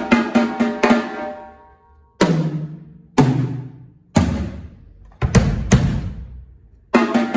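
Yamaha Rydeen acoustic drum kit being played. A quick run of strokes opens the passage. Then come single tom hits about a second apart, each a step lower in pitch and left to ring out, then a few low hits, and quick strokes start again near the end.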